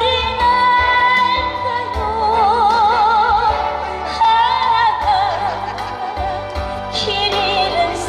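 A woman singing a Korean ballad live through a microphone and PA over musical accompaniment, holding long notes with a wide vibrato.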